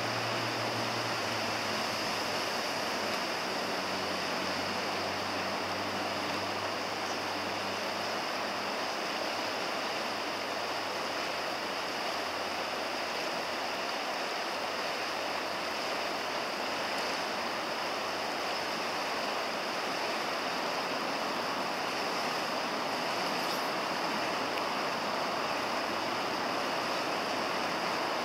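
Steady rush of a river's current flowing over a shallow, rippled stretch, an even unbroken water noise.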